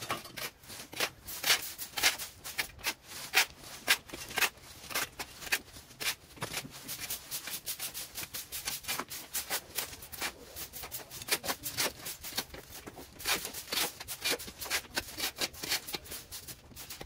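Repeated quick scratchy strokes of a tool or brush rubbing over a rough surface, about two or three a second in an uneven rhythm, typical of scrubbing, scraping or sweeping during cleanup work.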